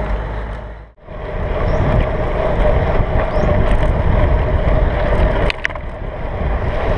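Wind rush and rolling road noise on a bicycle-mounted camera riding along a paved road, with a steady hum through it. The sound dips almost to nothing about a second in, then picks up again, and a couple of sharp clicks come a little past halfway.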